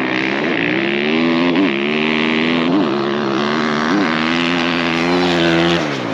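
2024 Husqvarna FC450's 450cc four-stroke single-cylinder engine pulling hard on a drag-race start. The engine note is steady, with three brief jumps in pitch about a second apart as the rider shifts, then it falls away near the end.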